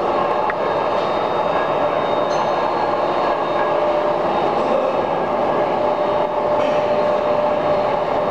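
Steady, loud machinery noise in a machine shop: an even mechanical rumble with a constant hum-like tone running through it, and a few faint ticks.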